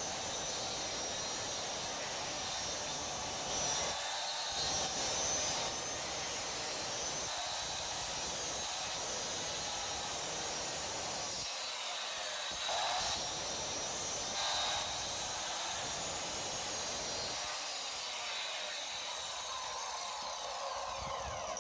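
Handheld marble cutter used as a circular saw, running steadily with a high whine as its blade cuts a half-inch-deep dado across a wooden board.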